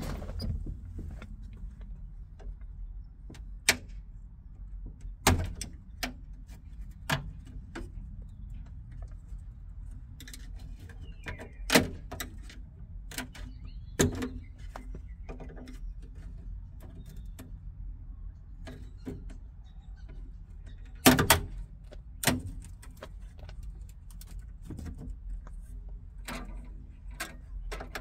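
Irregular sharp clicks and knocks as an old window frame on a Fiat 126 door window is levered with a screwdriver and pulled loose by hand, the loudest a close pair of snaps about three quarters of the way through, over a steady low rumble.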